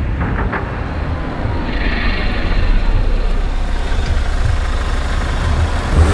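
Motor vehicle engine running, a steady low rumble.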